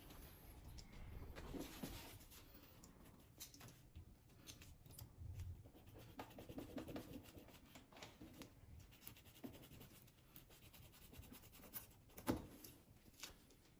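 Faint handling noises: light rubbing and scraping with scattered small clicks, and one sharper click about twelve seconds in.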